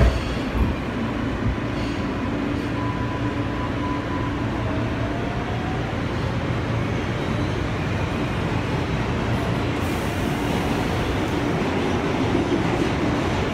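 Interior running noise of an R143 subway car on the move: a steady rumble with a faint rising whine partway through. A couple of knocks right at the start.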